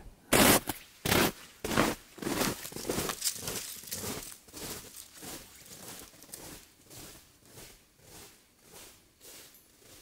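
Footsteps crunching on a frozen snow crust at a walking pace, about one and a half steps a second, growing fainter toward the end.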